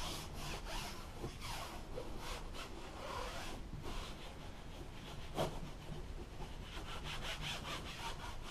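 Hands rubbing and smoothing fabric down onto a seat board in repeated swishing strokes, pressing the freshly spray-glued fabric flat to work out air bubbles, with one soft knock about halfway through.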